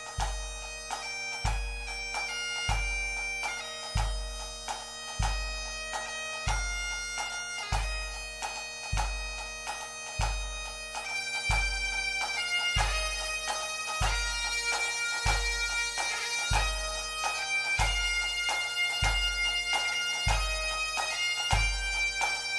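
Background music: a bagpipe tune played over steady drones, with a deep drum beat about every second and a quarter.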